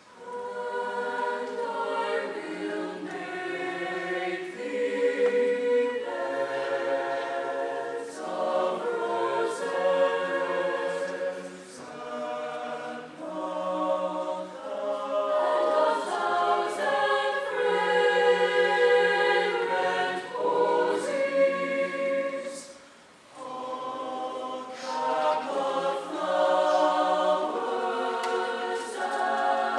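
Mixed-voice choir singing in harmony, coming in together right at the start after a quiet moment, with a short break for breath about three-quarters of the way through.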